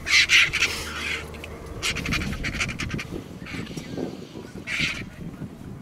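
Vultures squabbling over a carcass: harsh, hissing squawks in about four bursts, the loudest at the start.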